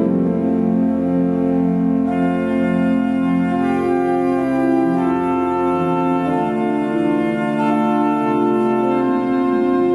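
1998 Metzler pipe organ with 44 stops playing a psalm setting: sustained full chords over a bass line, the harmony moving every second or so.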